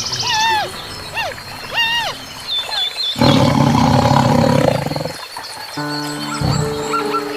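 A big cat's roar, loud and lasting about a second and a half, comes about three seconds in. Before it, a few short pitched animal calls rise and fall, and held notes of background music come in near the end.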